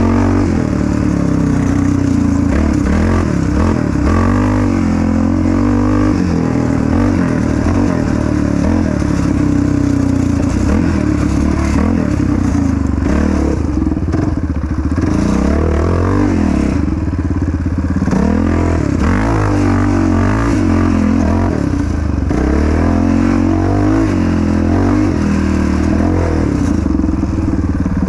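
Yamaha Raptor 700 quad's single-cylinder four-stroke engine being ridden hard. Its pitch rises and falls again and again as the throttle is opened and closed.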